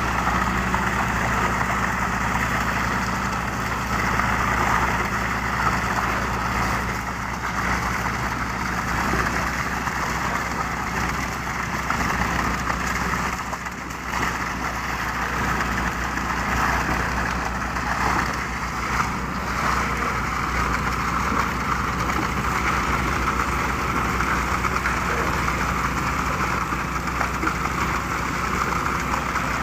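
Concrete pump truck's diesel engine running steadily during pumping, its low note thinning out about eight seconds in.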